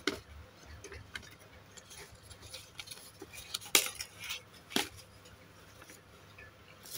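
A set of ten steel hex keys in a plastic holder being handled and pulled out of its plastic blister pack: scattered light clicks and clinks, the loudest a little under four and five seconds in.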